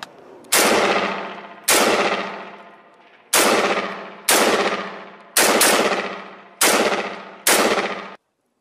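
Gun fired in single shots at close range, eight shots in about eight seconds, two of them in quick succession just past the middle, each followed by a long echoing decay. The sound ends abruptly near the end.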